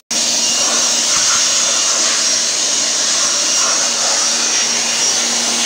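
DeWalt electric blower running steadily at full speed, a loud rush of air with a thin high whine, as it blows built-up dust out of a variable frequency drive's power module.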